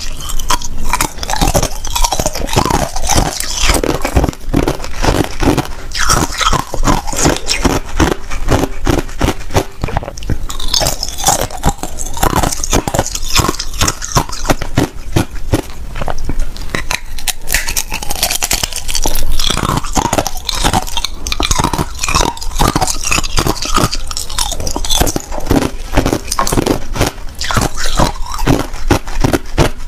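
Clear hard ice being bitten and chewed, picked up close by a clip-on microphone: a dense, continuous run of sharp cracks and crunches.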